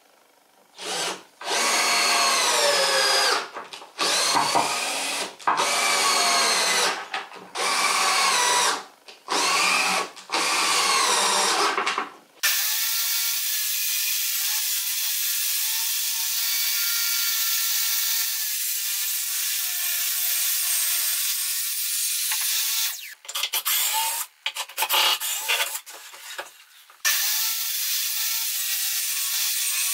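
Cordless drill driving screws into wood in about six short bursts, its motor whining up and down in pitch. About twelve seconds in, a table saw starts running steadily as a live-edge mulberry slab, screwed to a carrier board, is fed through it, with a few brief breaks in the sound near the end.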